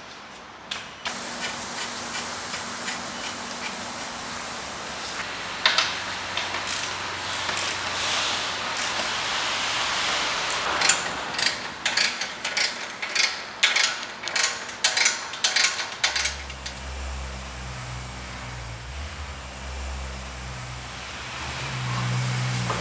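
Workshop air tool: a steady hiss of air, then a run of sharp ratcheting clacks about two a second for several seconds, as suspension fasteners are worked. A low steady hum takes over for the last few seconds.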